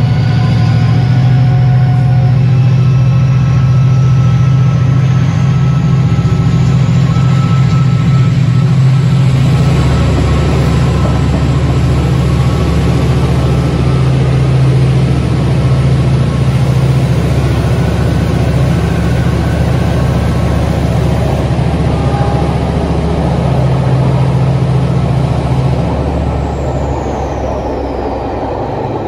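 Class 68 diesel-electric locomotive's engine working hard as it pulls away with its train: a loud, steady heavy diesel note with a high whine rising in pitch over the first several seconds.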